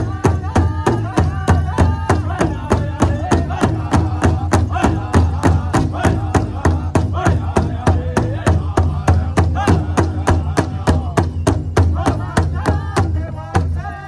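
Powwow drum group singing a fancy song together while striking one large hide-covered drum with padded beaters in a fast, even beat. The voices carry a wavering, high-pitched melody over the steady drumming.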